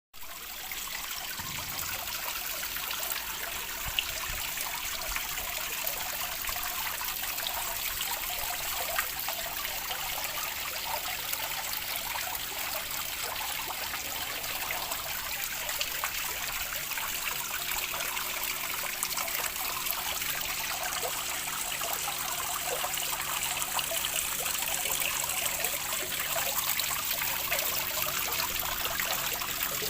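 Water trickling steadily, a continuous bright babble, with a faint low hum beneath it.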